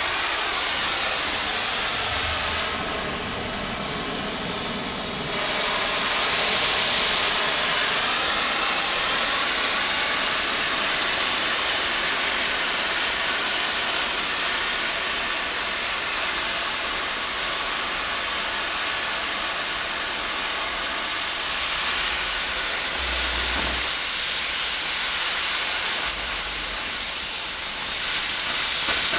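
Steady, loud hissing as the hardened steel of a tractor 3-point lift arm is cut, too hard for the bandsaw.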